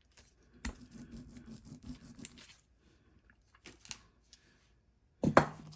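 Light scrapes and clicks of printmaking materials being handled on a gel printing plate as a stencil is brought in, with a louder sharp knock near the end.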